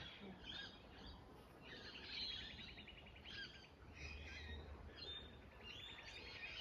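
Several birds singing faintly, a mix of short chirps and calls with two rapid trills, one about two seconds in and another near the end.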